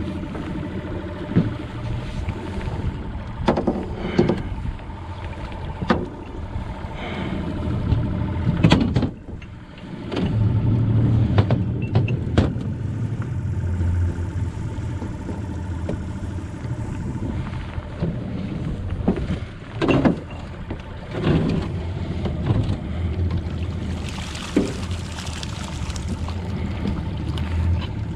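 Boat motor idling with a steady low hum under repeated knocks and clatters against the aluminium boat as a wire catfish net is hauled up by its rope; water splashes near the end as the net comes out.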